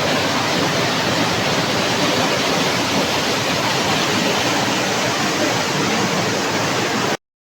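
Waterfall rushing: a steady, loud wash of falling water that cuts off suddenly near the end.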